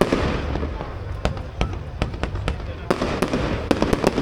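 Fireworks going off: a rapid, irregular string of sharp cracks and bangs, several a second, over a steady low rumble.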